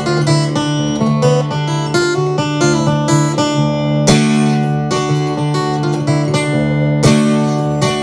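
Solo acoustic guitar playing an instrumental blues break, quick plucked melody notes over a steady ringing low note. Two full strums land about four seconds in and near the end.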